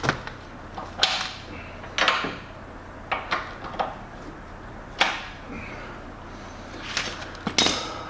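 Hydraulic hose quick-connect couplers being fitted to the auxiliary hydraulic couplers of a Toro Dingo mini skid steer: a string of sharp metal clicks and clanks, some ringing briefly.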